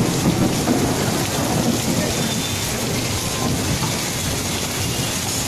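Heavy rain pouring steadily, with a low rumble of thunder dying away over the first second or two.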